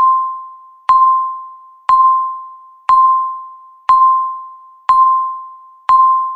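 Countdown timer's electronic beep sounding once a second, each one marking a second counted off. The single mid-pitched tone starts with a sharp click and fades out over the second until the next, seven beeps in all.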